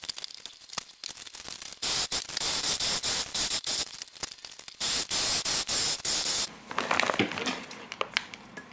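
Singer electric sewing machine running in two runs, about three seconds and then about a second and a half, stitching layers of fleece and woven plastic IKEA-bag fabric. Between the runs and near the end, the plastic fabric crackles and crinkles as it is handled.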